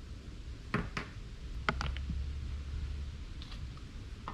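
A few light clicks and taps from objects being handled, one pair about a second in and a quick cluster near two seconds, over a faint low hum.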